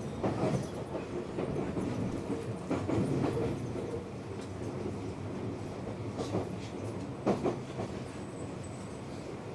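Seibu 6000 series electric train heard from inside motor car Moha 6252: a steady low rumble of the car rolling on the track, with a few sharp clacks of the wheels over rail joints.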